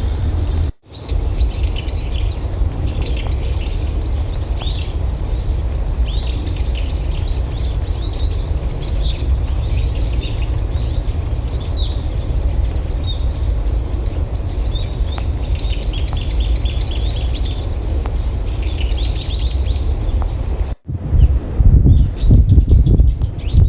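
Small songbirds chirping and twittering over strong wind blowing on the microphone as a steady low rumble. The sound cuts out for an instant twice, and after the second break the wind comes in louder, harder gusts.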